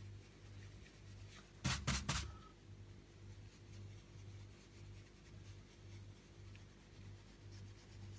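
Fan brush scrubbing and blending acrylic paint on canvas, a faint scratchy brushing, with a quick cluster of sharp knocks about two seconds in.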